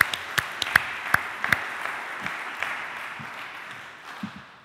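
A small audience of a few dozen people applauding. A few sharp, close claps stand out in the first second and a half, and the applause dies away toward the end.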